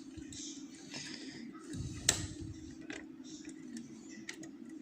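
Light metal clicks and scrapes from lever-lock picking tools being handled and worked in an ERA 5-lever curtained lock, the sharpest click about two seconds in, over a steady low hum.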